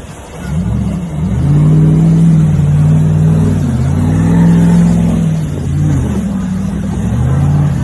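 Off-road vehicle's engine revving hard, its pitch climbing and dropping several times as the throttle is worked.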